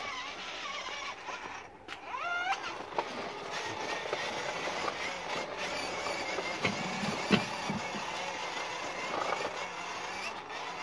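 Child's electric toy motorbike running along a brick-paved path, a steady rolling noise of its small motor and tyres on the pavers. A brief rising squeal comes about two seconds in, and a sharp click a little after the middle.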